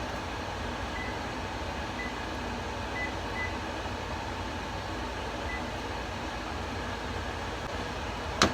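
Steady background hum with a sharp click right at the end.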